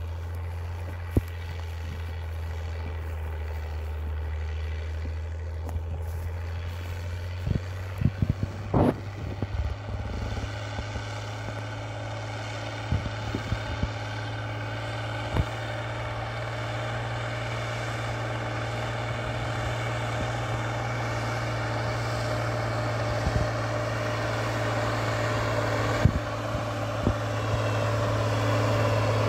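IMT 5136 tractor's turbocharged diesel engine working under load as it pulls a disc harrow: a steady low drone that grows slowly louder as the tractor comes closer, its note shifting about a third of the way in. A few short sharp knocks are scattered through it.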